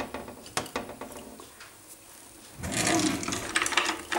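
Kitchen handling sounds at a stainless steel pot: a few light clicks and knocks, then, from a little past halfway, a louder stretch of rapid clicking and rubbing clatter.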